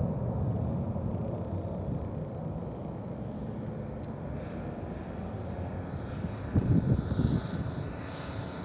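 Boeing 737-200's Pratt & Whitney JT8D turbofans rumbling as the jet climbs away after take-off, the sound slowly fading with distance. A few loud, brief low buffets come in about seven seconds in.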